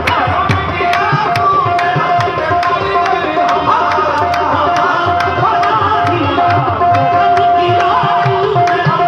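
Qawwali music: tabla and harmonium played at a driving pace, with sharp handclaps on the beat about three times a second.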